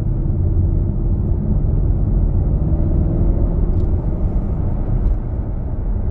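Interior cabin noise of a Jaguar XK on the move: a steady low rumble of tyres and road, with the V8 engine humming underneath.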